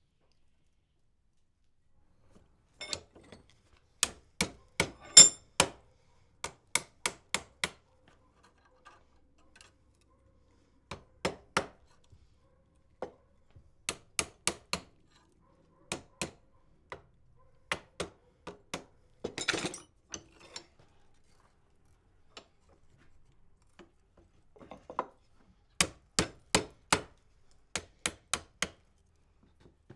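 Hammer blows on the wrought iron latch handle at the anvil, sharp ringing strikes in bursts of several quick blows with short pauses between. A brief scraping sound comes about two-thirds of the way through.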